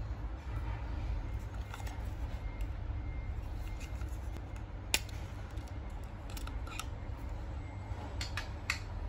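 Sharp plastic clicks from a Klarus HC5 clip light and its charging case being handled as the light is pushed out of the case, the loudest about halfway through, with a few more near the end, over a steady low rumble.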